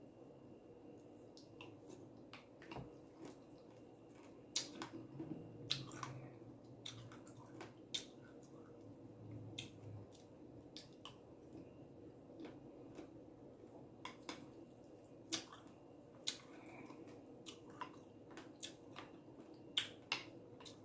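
Quiet, close-up eating sounds: chewing crunchy granola, berries and pomegranate seeds in coconut water, with wet mouth sounds and irregular sharp clicks.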